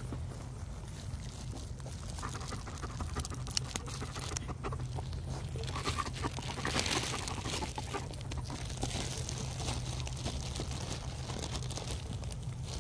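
Dry grass and stems rustling and crackling right at the microphone, with many small scattered clicks over a steady low hum.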